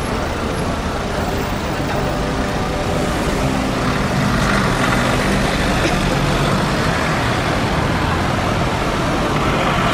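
Road traffic on a city street: car engines running and passing close by, a steady rumble with the hum of an idling engine.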